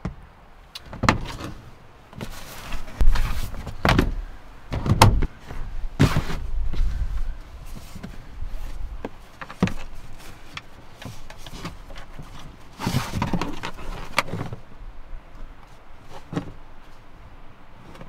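Plastic storage bins being shifted and set down inside a pickup's camper shell: a run of knocks and thuds with a couple of longer scrapes, busiest over the first seven seconds and again about thirteen seconds in.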